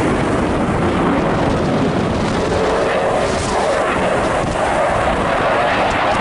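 Loud, steady jet noise from a Eurofighter Typhoon's twin EJ200 turbofan engines as the fighter flies its display.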